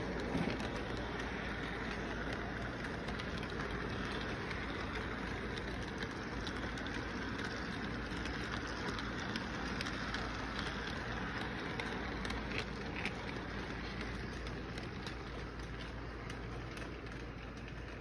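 Model train cars rolling past on the track, a steady rumble of wheels and motor that eases off slightly near the end.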